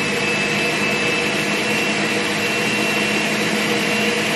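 Countertop blender running steadily, puréeing a mix of bell peppers, onion, ginger and garlic, with a constant high motor whine through the churning.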